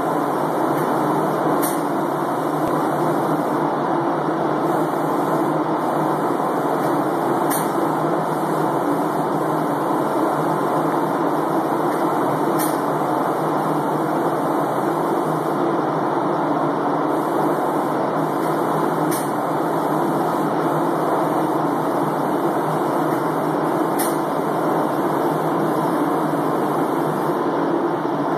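Steady, loud rush of air from a hose-fed spray gun spraying finish onto wooden boards in a spray booth, with a few faint ticks.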